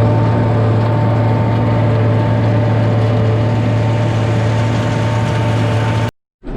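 Large farm diesel engine running steadily at constant speed: a deep, even hum with a faint steady higher tone above it.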